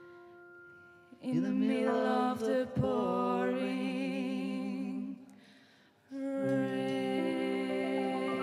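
A live band and singers end a song. A last piano phrase dies away, then the band and voices hold a chord with wordless vocal harmonies from about a second in. It fades out, and a second held chord with voices comes in at about six seconds.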